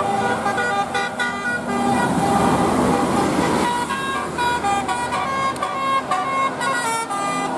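Bus telolet horns of the Basuri type, multi-tone musical air horns, playing short stepped melodies that change note several times a second. A rush of noise is heard under them around the middle.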